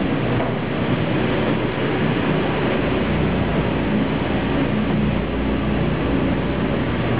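Steady rumbling hum of an underground metro station, with low machinery drone and no distinct events.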